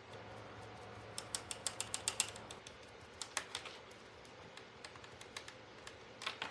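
A quick run of light clicks and crackles, about ten in a second, then a few scattered ones: small wooden craft pieces being picked at and moved on a plastic sheet.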